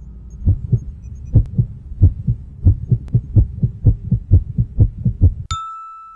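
Cartoon heartbeat sound effect: paired low thumps that quicken steadily as a character falls in love. Near the end the beats cut off suddenly into a steady high tone.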